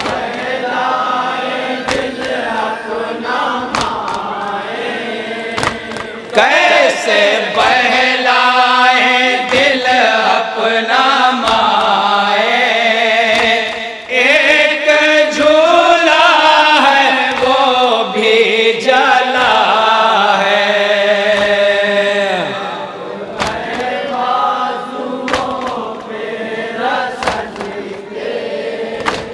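Men chanting a noha, an Urdu mourning lament, unaccompanied through a PA system: lead reciters sing lines that a group of voices takes up in chorus. Scattered slaps of hands beating on chests (matam) sound through the chanting.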